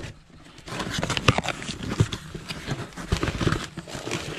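A cardboard parts box being opened and rummaged through: irregular knocks and taps of cardboard flaps and small boxes, with rustling of plastic packaging.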